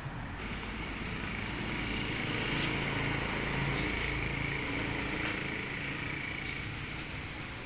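Backpack sprayer spraying disinfectant: a steady hiss over a low mechanical hum.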